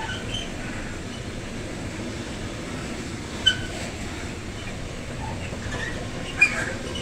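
Freight train of covered hopper wagons rolling past at steady speed, a continuous rumble of wheels on rail. Two brief sharp squeaks stand out, about three and a half and six and a half seconds in.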